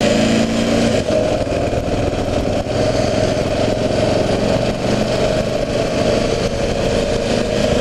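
Kawasaki KLR 650's single-cylinder engine running steadily.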